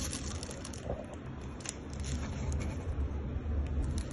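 Rustling and irregular small clicks of a blind-box package being handled and worked open by hand.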